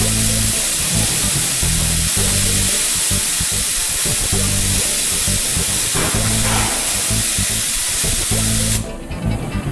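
Steady hiss of compressed air blowing through a spray gun fed at 30 PSI from a digital air regulator, under background music with a steady beat. The hiss cuts off suddenly near the end while the music goes on.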